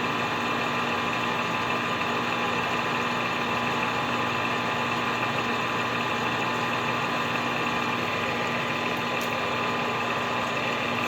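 Machine tool's motor and spindle running steadily, with an even hum and several constant whining tones, while taking a light carbide-cutter facing cut on a chainsaw cylinder base.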